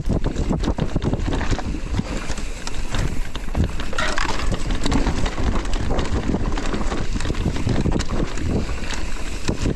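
Electric mountain bike ridden fast over a rough trail: wind buffeting the microphone over a steady rattle and many short knocks from the bike and tyres on the ground.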